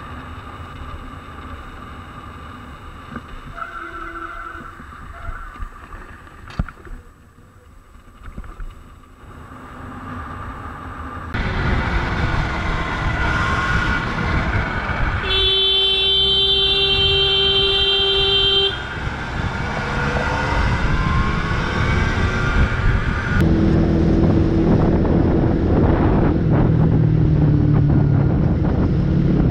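Road traffic and riding noise from several clips, with a vehicle horn sounding one long steady honk of about three seconds around the middle. Near the end a motorcycle engine runs under louder road noise.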